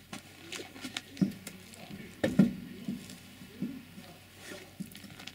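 Scattered light clicks and knocks, about eight in all, of hands and tools working at a UAZ Patriot's front wheel. The sharpest knock comes a little past two seconds in.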